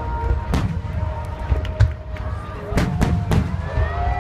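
Aerial firework shells bursting overhead with sharp bangs, one about half a second in and three in quick succession near the end, over a low rolling rumble.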